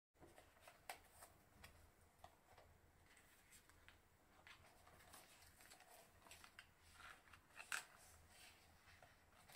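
Faint handling sounds of a clear plastic cover and a spiral-bound Rollbahn diary being taken apart and opened: soft, scattered clicks and rustles of plastic and paper. The sharpest click comes a little past two-thirds of the way through, over a faint low room hum.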